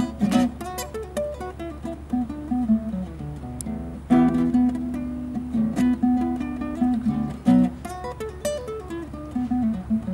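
Classical acoustic guitar played solo in a blues instrumental passage: picked single-note runs between chords, with hard-struck chords near the start and about four seconds in.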